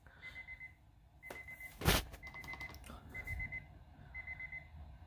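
Emergency alert attention signal: a high beep about half a second long, repeating about once a second. A sharp knock about two seconds in is the loudest moment.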